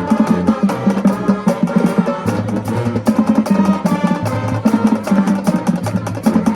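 High school marching band playing, with the drums striking a quick steady beat over a repeating low bass line.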